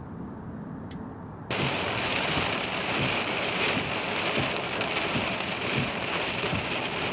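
Heavy thunderstorm downpour: dense rain falling hard, cutting in abruptly about a second and a half in after a quieter low rumble.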